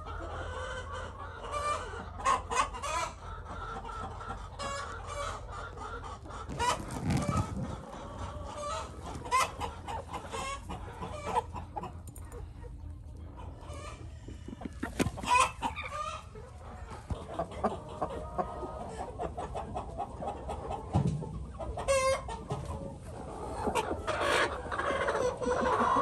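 Hens clucking in a run of short, repeated calls, with a few louder ones scattered through.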